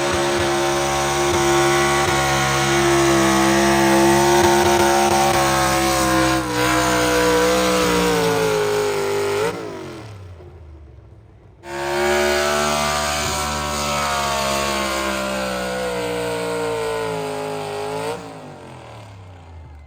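A pulling vehicle's engine running hard under heavy load, its pitch slowly sagging before it throttles down about halfway through. About two seconds later it runs hard again under load, then winds down near the end.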